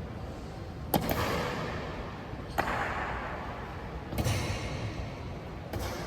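Navy honor guard's rifle drill: four sharp stomping impacts, evenly spaced about a second and a half apart, each followed by a long ringing echo.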